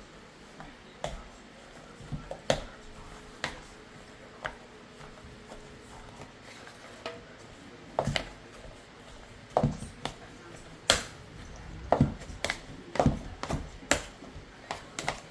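A kitchen utensil knocks and clinks against a pot or bowl, about a dozen sharp knocks at irregular intervals that come closer together near the end: mashing potatoes with butter and cream.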